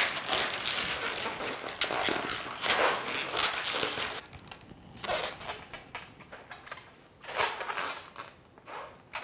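Latex twisting balloons rubbing against each other as a 260 balloon is twisted and wrapped into a 160's pinch twists: a continuous rubbery friction noise for about four seconds, then a few shorter rubs.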